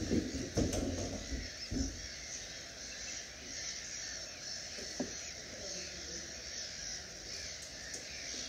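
Sandwich tern flock giving harsh, grating calls over a steady background hiss, with a few low rumbles in the first two seconds.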